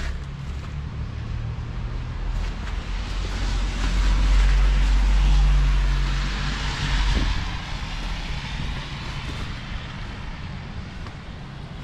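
A passing vehicle: a broad hiss over a low rumble that swells for a few seconds, peaks about halfway through and fades away.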